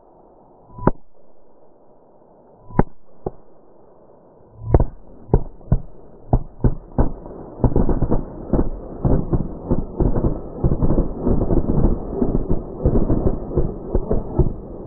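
Firecrackers from a cannonball firework going off: a few separate sharp bangs, then from about five seconds in a rapid string of dozens of bangs that grows denser and stops near the end. The cannonball has burst open and scattered its smaller firecrackers.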